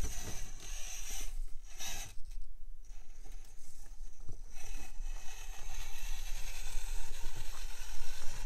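Micro RC rock crawler's small electric motor and gear train running: a high whine that stops briefly about two seconds in and then resumes, with scraping and rustling as the tyres and chassis work over the course.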